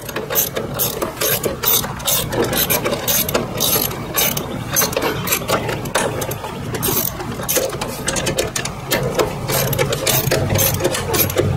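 A socket ratchet clicking in quick, uneven runs as a 12 mm bolt is screwed into the rear shock's lower mount.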